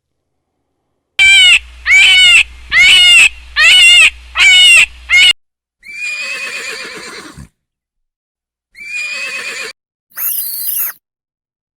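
Farm animal calls cut one after another: a loud run of about five pulsing, pitched calls, then three shorter calls, each starting and stopping abruptly.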